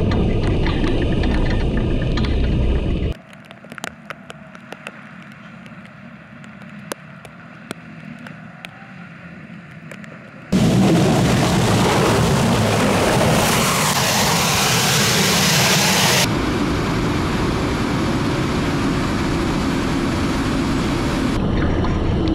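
Main battle tanks driving over muddy ground: a steady, loud engine and track rumble. About three seconds in it cuts to a much quieter stretch with scattered sharp clicks and clanks, then to loud, close-up engine and track noise again.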